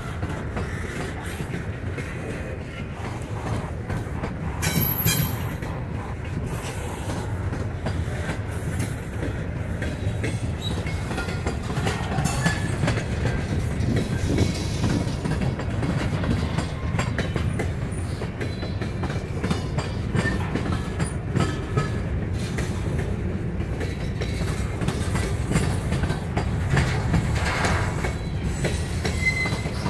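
Norfolk Southern freight train rolling past, double-stack container cars followed by covered hopper cars: a steady rumble with wheels clicking over rail joints, and a brief high-pitched wheel squeal about five seconds in.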